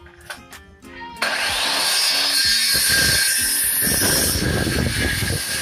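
Modern M-2600L circular saw switched on about a second in, its motor winding up with a rising whine, then the blade cutting through a strip of wood.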